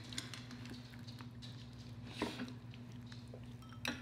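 Faint wet squishes and light taps of fingers picking through seafood boil in a glass bowl, with two sharper clicks about two seconds in and near the end.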